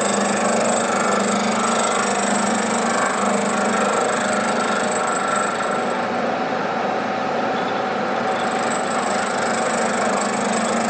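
Bridgeport milling machine with a carbide cutter in the spindle, running steadily through a light skimming pass on a steel crosshead. It gives a continuous motor hum with a high whine over it.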